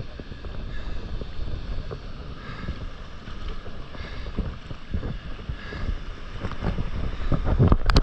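Sea water rushing past an action camera held just above the surface while a surfboard rides the white water, with wind buffeting the microphone. Near the end, splashes strike the camera several times in quick succession.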